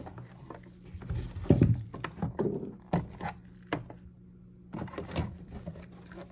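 Plastic gauge-cluster lens and housing being handled and fitted together: scattered clicks, taps and knocks of hard plastic on plastic and on a wooden bench, with a louder knock about a second and a half in, over a faint steady hum.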